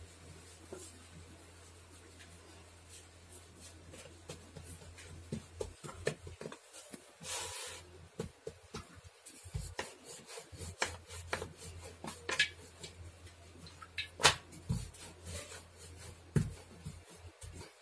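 Wooden rolling pin rolling out dough on a wooden chopping board: soft rubbing and irregular light knocks of the pin against the board, starting about five seconds in.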